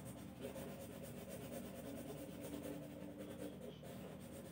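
Faint rubbing on drawing paper as graphite pencil shading is blended.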